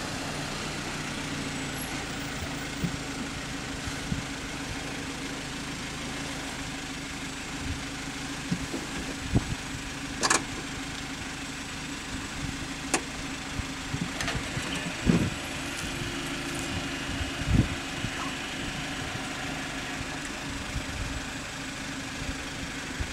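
Steady low engine hum, like a vehicle idling, with a few low thumps of wind on the microphone and a couple of sharp clicks.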